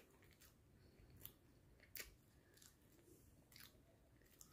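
Faint chewing of a mouthful of soft white sliced bread, with a few quiet short clicks scattered through it.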